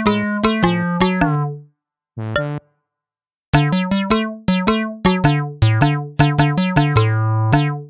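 Background music: a bouncy keyboard tune of short, quickly fading notes. It drops out for about two seconds, broken by a single note, then picks up again.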